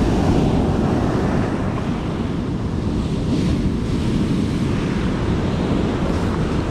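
Ocean surf breaking and washing up the sand, a steady rushing, with wind buffeting the microphone.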